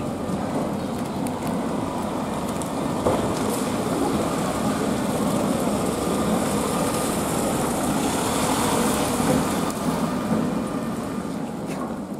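Traffic on a wet street: a delivery van's engine and tyres on the wet road as it drives past close by, with a tram drawing up near the end.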